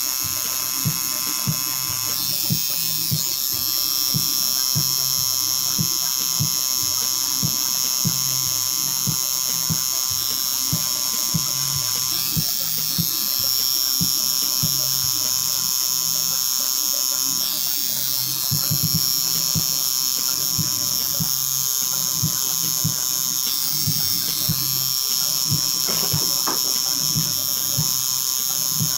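Tattoo machine buzzing steadily as it inks black linework into skin.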